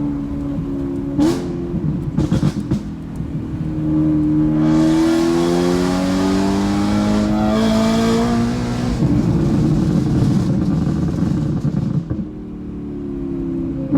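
2013 BMW M3's V8 with a catless, nearly straight-piped Akrapovič exhaust, under hard acceleration: a few sharp pops early on, then the revs climb steadily for about four seconds. Lifting off brings a spell of rough crackling and popping on the overrun, from the Gintani tune.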